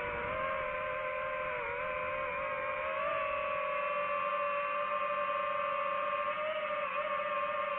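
DJI FPV drone's motors and propellers whining steadily in flight, the pitch dipping briefly about a second and a half in and rising slightly a second later as the throttle changes.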